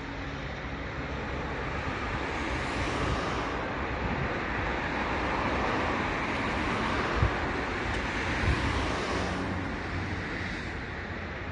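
Noise of a passing vehicle, growing louder over a few seconds and then fading, with two short thumps in the second half.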